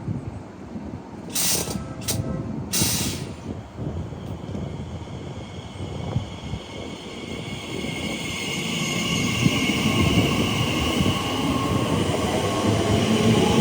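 A train approaching along the line, its running noise growing steadily louder from about eight seconds in, with a high whine over it. Before that, wind rumble on the microphone and three short hisses a few seconds in.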